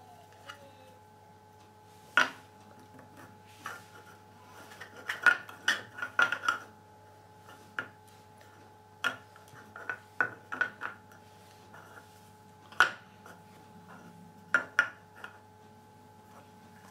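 Puzzle picture cubes clacking against each other and the wooden tabletop as they are handled and set in place: irregular knocks, with a quick run of them about a third of the way in.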